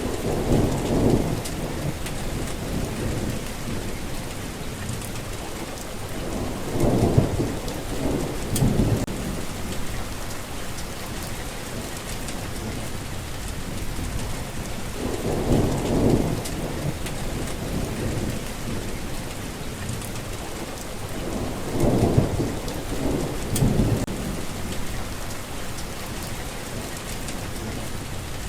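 Steady heavy rain falling, with low rumbles of thunder rolling in four times.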